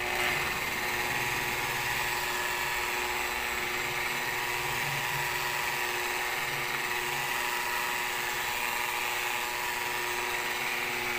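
Electric rotary car polisher with a foam pad running at a steady speed against a painted body panel, spreading rubbing compound: an even, unbroken motor whine.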